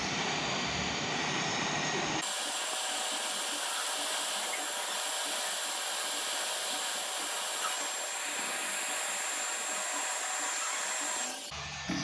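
Hot-air rework station blowing a steady rush of air over a laptop motherboard to melt the solder under an SMD capacitor so it can be lifted off. A faint high whine runs through it. It starts abruptly about two seconds in and cuts off near the end.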